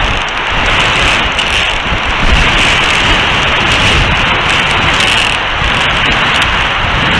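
High wind blowing across an outdoor camera microphone: a loud steady rushing noise with uneven low buffeting from the gusts.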